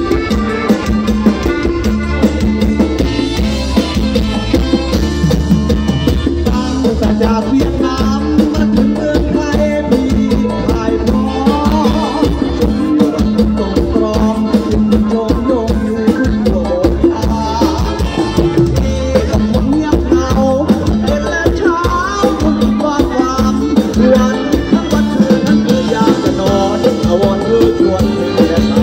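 Live ramwong band playing through a PA, with a steady drum beat, keyboard and a male singer on a microphone.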